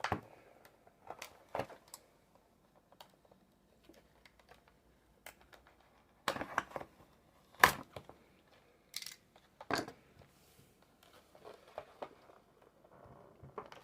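Plastic packaging of a drill bit set being handled and worked open by hand: scattered crinkling and sharp clicks at irregular intervals, with a few louder snaps around the middle.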